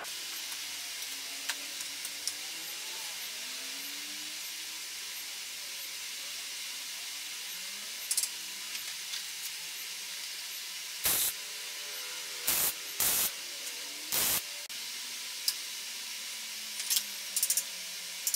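Stick (arc) welder striking short arcs on a steel-tube frame: a handful of brief bursts of arc noise in the second half, over a steady hiss.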